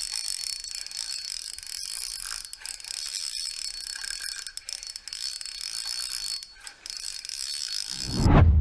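Shimano Wanford 3000 spinning reel being cranked on a lure retrieve, winding steadily with occasional clicks. A loud, low whoosh comes near the end.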